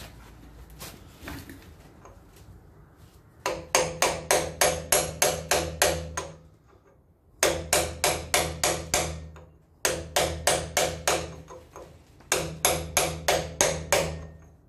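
Hammer tapping a big flat punch to fold a lock washer's tab flat against the hub nut on a Land Rover Series hub. Four quick runs of ringing metal strikes, about five a second, with short pauses between them, starting a few seconds in.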